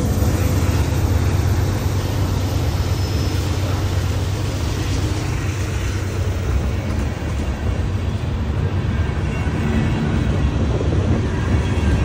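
Freight train passing close by: a diesel locomotive's deep engine rumble, then the steady rolling noise of tank car wheels on the rails, with the low rumble continuing underneath.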